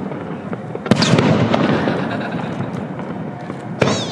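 Aerial fireworks shells bursting: a sharp bang about a second in and another near the end, with a rumbling decay and crackle between them.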